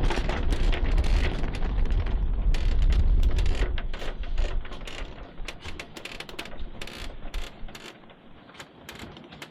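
Sailboat winch ratcheting in a run of quick clicks as a sheet is worked, over a heavy rumble of wind buffeting the microphone that eases off after about five seconds.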